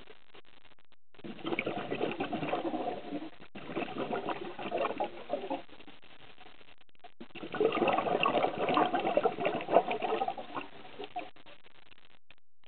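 A scuba diver's regulator releasing exhaled bubbles underwater: long bubbling bursts of a few seconds each, one breath after another, with short quiet gaps between them.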